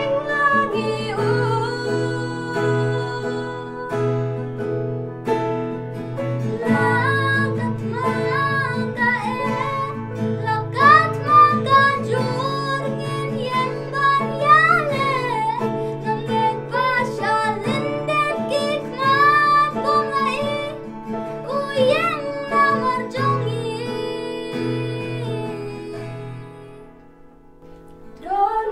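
Girls singing a song together with acoustic guitar and electronic keyboard accompaniment. The music drops away briefly near the end.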